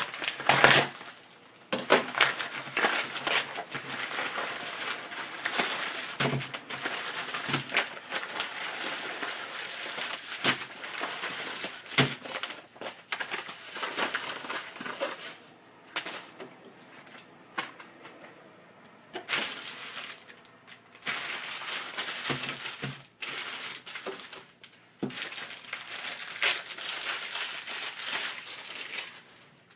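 Product packaging being handled and opened: irregular crinkling and rustling with scattered clicks and knocks, pausing now and then.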